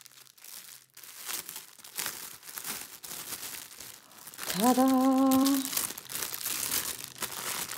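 Clear plastic bags crinkling as they are handled and pulled open; the bags hold small packs of square diamond-painting drills.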